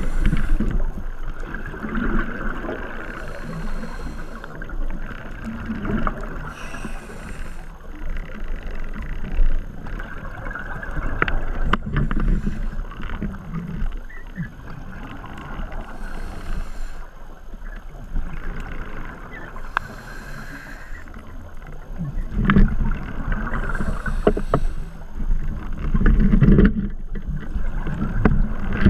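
Muffled underwater noise through a camera's waterproof housing: water movement and low rumbling with scattered knocks, and short hissing bursts every three to four seconds.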